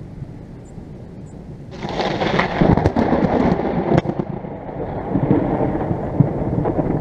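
Nearby thunder: a sudden crackling clap about two seconds in, with several sharp cracks over the next two seconds, then settling into a lower rumble.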